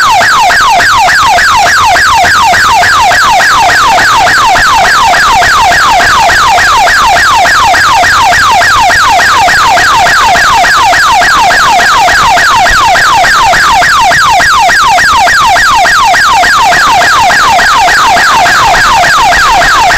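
Emergency vehicle's electronic siren in a fast cycling tone, each sweep falling quickly in pitch and repeating several times a second without a break, loud as heard from inside the vehicle carrying it on an emergency run.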